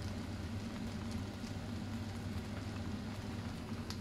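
Rice noodles sizzling steadily in a hot wok over a gas burner, with a steady low hum underneath and a few faint ticks.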